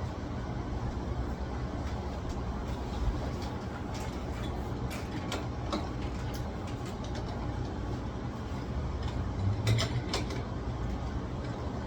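A few light clicks and knocks of metal lock parts being fitted together as the keyed exterior piece of a Kwikset interconnected lock is lined up with the interior assembly, with a cluster of several louder clicks near the end. A steady low rumble runs underneath.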